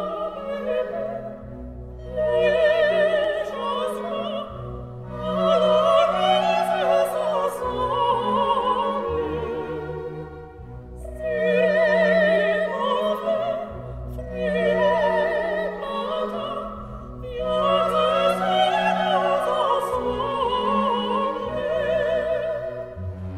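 Operatic singing with wide vibrato over an orchestral accompaniment of sustained low notes, in long phrases that swell and ease every few seconds.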